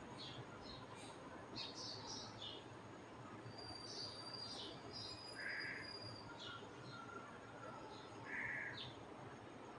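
Faint birds chirping with two crow caws about three seconds apart, over a steady low hiss of oil frying in the pan.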